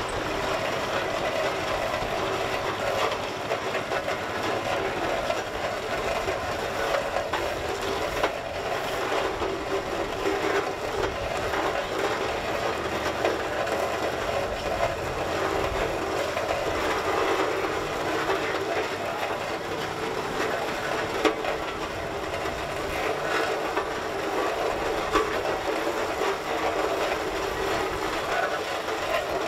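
Antique steel-wheeled steam traction engine running as it drives slowly over gravel: a steady mechanical clatter dotted with small clicks.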